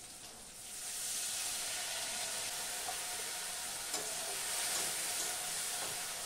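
Water poured into a hot kadai of fried potato and tomato sizzles up about a second in and keeps hissing steadily as it heats, with a spatula knocking against the pan once or twice while it is stirred.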